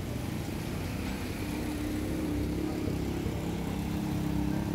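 Small auto-rickshaw engine running steadily close by, a little louder from about a second and a half in, over general street traffic.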